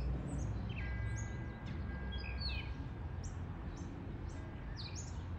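Gray catbird singing: scattered short, varied chirps and slurred notes, over a steady low background rumble.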